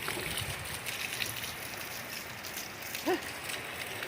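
Heavy rain falling steadily, an even hiss of rain on surfaces, with one short rising sound about three seconds in.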